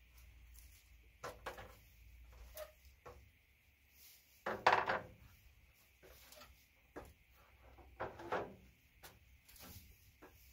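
A string of knocks and clunks from tools being handled and set down on a stepladder, a cordless drill and a long metal tool among them; the loudest, longer clunk comes about four and a half seconds in.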